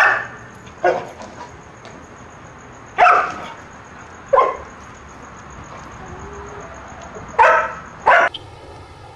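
A dog barking in single short barks at irregular intervals, with a quick pair of barks near the end.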